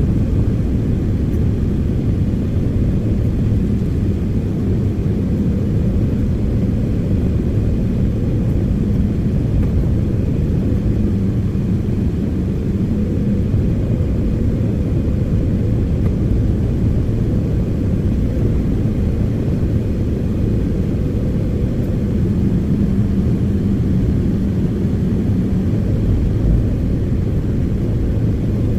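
Diesel engine of heavy earthmoving equipment running steadily: a deep, constant rumble with no breaks or revving.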